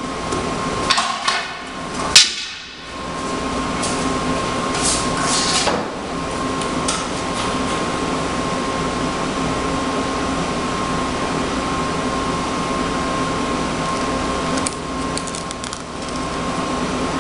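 A wooden board knocks against the metal rim of a hydrographic dip tank: a few light knocks, then one sharp clack about two seconds in, followed by some short swishes. A steady mechanical hum with a thin high tone runs underneath.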